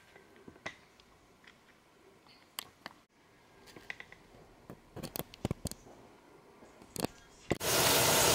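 Scattered light clicks and knocks of the camera being handled. Near the end a loud, steady hiss cuts in abruptly.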